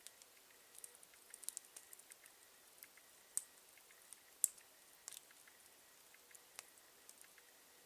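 Campfire crackling faintly: irregular sharp snaps and pops of burning wood, with two louder pops around the middle.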